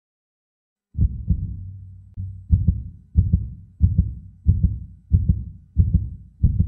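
Heartbeat sound effect: a steady run of low double thumps, lub-dub, about every two-thirds of a second, starting about a second in after a brief silence.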